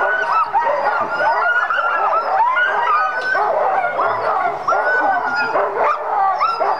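A harnessed sled dog team barking all at once, many dogs overlapping in a dense, unbroken clamour of high calls, with some longer drawn-out calls among them. This is the excited noise of sled dogs straining in their harnesses, eager to be let go on a run.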